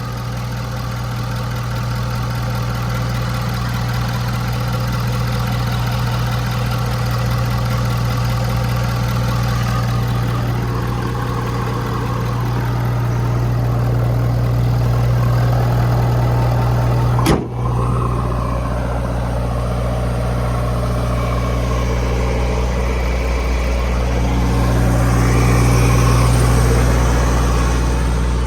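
2016 Ford F550's 6.7-litre Power Stroke diesel V8 running steadily at idle, with one sharp click about two-thirds of the way through and a slight rise in level near the end.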